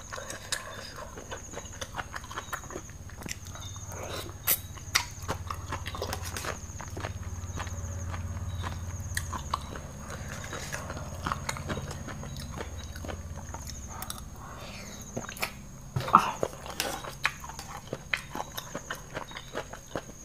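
A fork clicking and scraping on a metal tray while spicy papaya salad with squid and noodles is picked up and chewed, with many small clinks and mouth sounds. A low hum runs through the middle, and a short squeaky sound comes about three-quarters of the way through.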